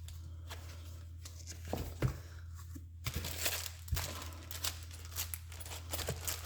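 Paper being handled: intermittent rustling and crinkling with a few light taps, over a steady low electrical hum.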